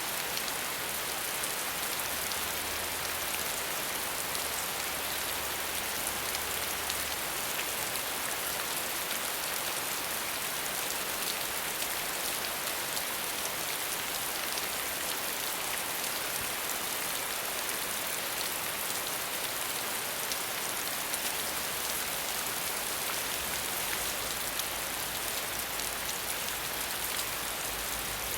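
Steady rain falling: an even hiss of many drops, with individual drop ticks scattered through it.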